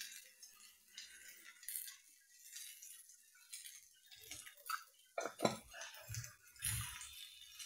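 Faint clinks and taps of a small spoon against a dosa tawa as ground pepper is sprinkled over sautéing onions, with a few sharper knocks a little past halfway.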